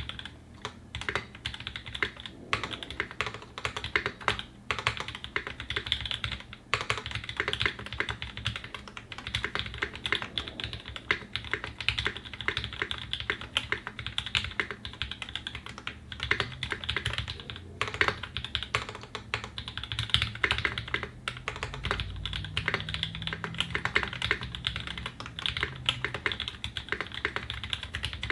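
Steady, fast typing on a custom mechanical keyboard, a TGR Singa 75 with a polycarbonate case and brass plate, lubed Tangerine linear switches and GMK Metaverse ABS keycaps. It is a dense, unbroken stream of keystroke clicks.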